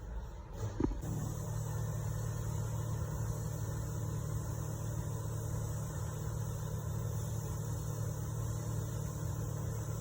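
Porsche Cayenne engine idling, its clogged injectors freshly cleaned to cure a misfire. About a second in there is a short knock, then a louder steady hum and a high hiss come on and hold.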